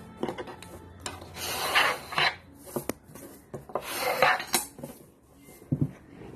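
A sheet of paper being rubbed flat and creased by hand against a wooden tabletop: two long rasping swipes, with light clicks and rustles between them and a couple of soft thumps near the end.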